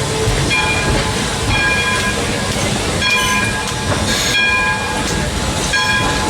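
Steam excursion train rolling along the track: a steady low rumble of the cars, with short metallic ringing tones recurring every half second or so.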